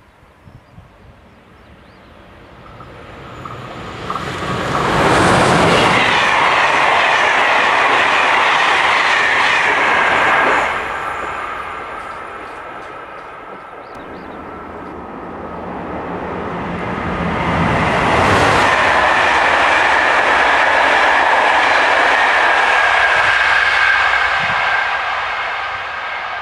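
Two trains passing close at speed, one after the other. Each builds from a distant rumble to a loud rush of wheels on rail with a high whine that falls in pitch as it goes by, then fades. The second is a passenger train of Corail coaches.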